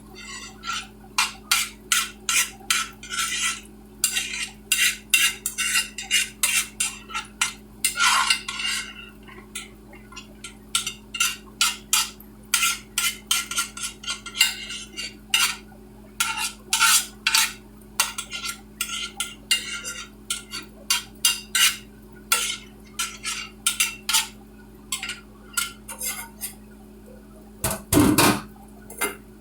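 A metal spoon scraping and knocking against a pot, as when rice is scooped out in portions. There are dozens of short knocks, about two a second, with a few longer scrapes and a louder clatter near the end.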